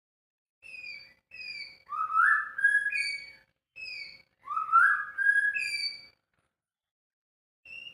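White-rumped shama (murai batu) singing clear whistled notes: short falling slurs and rising slides. The same phrase is given twice in a row with a brief pause between, and a new phrase starts near the end.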